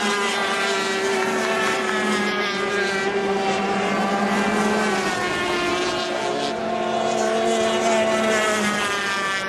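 Several 350cc two-stroke racing outboard engines running flat out as a pack of race boats passes. Their overlapping engine notes drift slightly in pitch.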